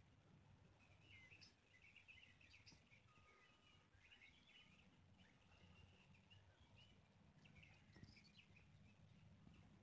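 Faint, scattered bird chirps over a very quiet low background.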